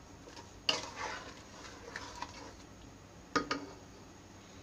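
Wooden spatula stirring mango pieces in sugar syrup in a non-stick pan: a knock and short scrape against the pan about a second in, and two quick knocks a little past the middle.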